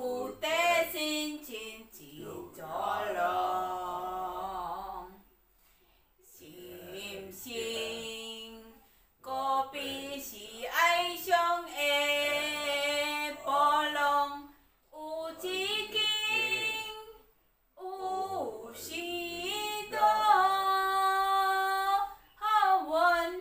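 A woman singing a simple song unaccompanied, in phrases of held notes with short breaks between them.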